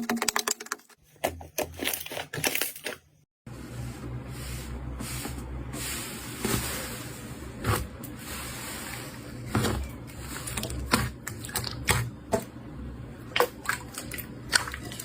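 Slime being squished and pressed by hand: dense crackly popping at first, then scattered sticky squelches and pops. It drops out briefly about three seconds in and goes on over a low steady hum.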